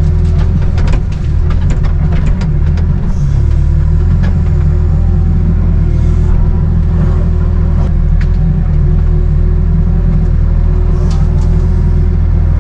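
Excavator's diesel engine running steadily under load, heard from the operator's cab, with a steady whine and scattered sharp cracks and knocks as trees and branches are gripped and shoved aside.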